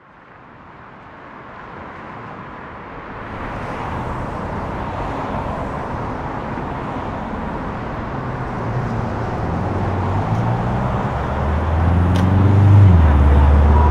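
A steady rushing roar fades in from silence and keeps swelling; from about halfway, low held bass notes come in underneath it, the start of the soundtrack music.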